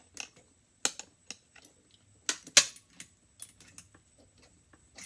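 Irregular sharp metal clicks and clinks from hemostats, split rings and fishing hooks being handled at a vise, the loudest about a second in and twice around two and a half seconds in.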